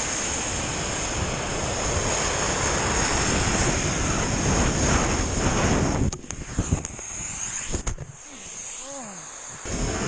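Wind rushing over an action camera's microphone during a fast snowboard run. About six seconds in the rush breaks off into a few sharp knocks and a quieter, muffled stretch before it comes back near the end.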